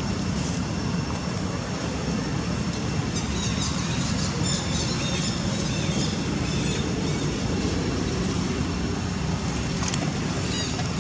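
Steady outdoor background rumble, with faint high chirping a few seconds in.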